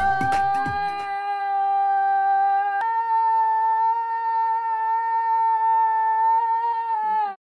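A boy's voice holding one long sung note, which steps up to a higher note about three seconds in and is held again before cutting off abruptly near the end.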